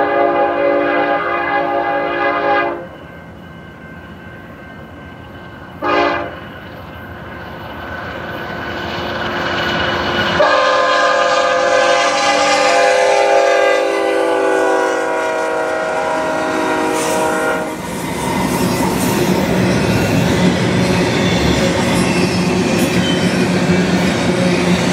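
BNSF diesel freight locomotives' air horn sounding a chord of several tones. A blast ends near three seconds in, a short toot comes about six seconds in, then a long blast of about seven seconds drops slightly in pitch as the locomotives go by. After that the steady rolling and clatter of steel wheels on rail as double-stack intermodal cars pass.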